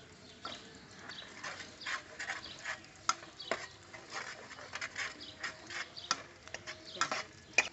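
Metal spatula scraping and stirring in a steel wok, in irregular strokes with a few sharper clinks of metal on metal.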